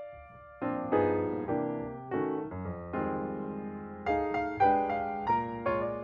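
Background music: piano or electric keyboard playing chords in a steady, gentle rhythm.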